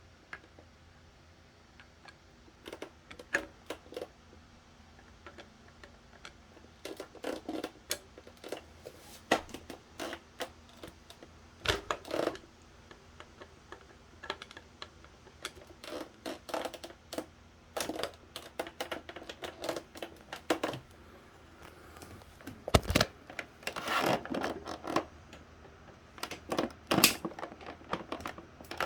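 Hands working on an electric fan during a start-capacitor replacement: irregular clicks, taps and scrapes of the fan's parts being handled, with a couple of heavier knocks partway through.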